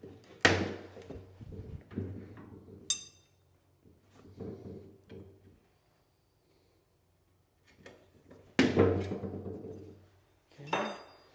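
Tire-changing work noises: two loud sudden knocks or rushes, each trailing off over about a second, one about half a second in and one near nine seconds, with a short ringing metal clink near three seconds.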